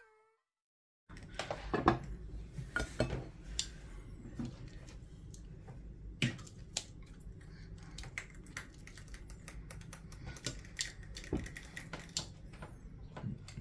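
Kitchen scissors and metal tongs clicking and clinking against a ceramic platter as a roast chicken is cut up and served. The clicks are scattered and sharp, over a low steady hum, and start about a second in.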